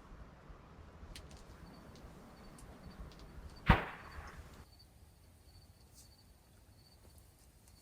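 A single loud, sharp crack a little over halfway through, with a short fading tail, over a faint steady high-pitched tone.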